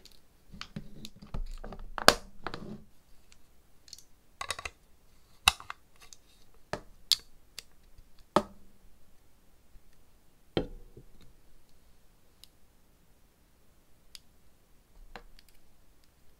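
Long soft-gel nail tips clicking and tapping against plastic packaging and a gel bottle as they are handled. A busy patch of handling and tapping comes in the first three seconds, then scattered single sharp clicks follow.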